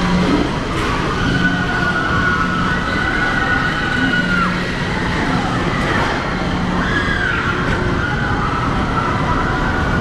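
Ride noise inside the darkened Space Mountain building from a moving PeopleMover car: a steady rumble with a low hum that comes and goes every couple of seconds, under long high tones that hold, waver and slide down.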